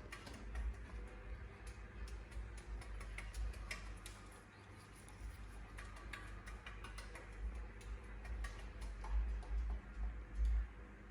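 Irregular sharp clicks and ticks, a few a second, over a low rumble, typical of a parrot clicking its beak.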